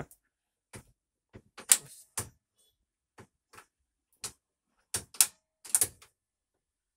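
Flap handle on an MD airliner's cockpit centre pedestal being worked through its detents: a run of irregular clicks and clacks, sharpest about two seconds in and again around five to six seconds in, then stopping.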